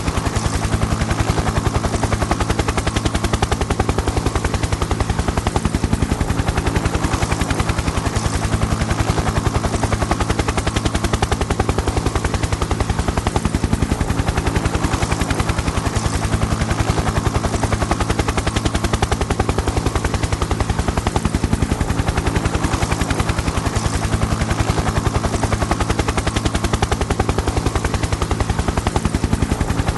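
Helicopter in flight: rotor blades chopping in a fast, even beat over a steady engine drone, holding a constant level with no pass-by.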